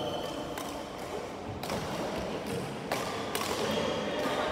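Badminton rackets hitting a shuttlecock, several sharp taps about a second apart, with footsteps on a wooden court floor.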